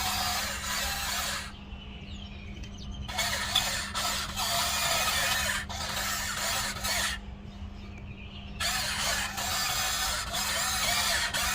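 Small electric motors and plastic gearboxes of a Huina 1594 radio-controlled excavator whirring in runs as it works. The whirring stops twice, for about a second and a half each time, about a second and a half in and again about seven seconds in.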